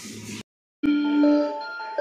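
Background music: a simple melody of held notes starts about a second in, right after a sudden cut to silence. Before the cut there is a short stretch of steady noise.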